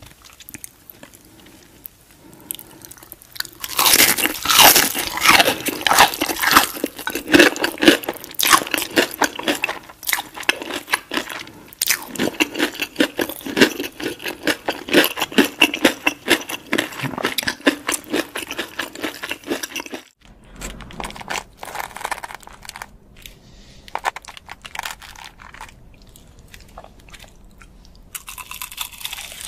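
Close-miked crunching and chewing of crispy breaded fried chicken: the first few seconds are quiet, then dense crackly bites and chews set in. About two-thirds through there is an abrupt cut to softer chewing, with a louder crunchy bite into battered fried fish near the end.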